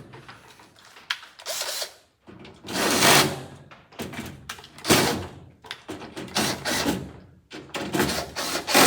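Mechanical working noise from the door's window regulator work, in about five bursts of roughly a second each.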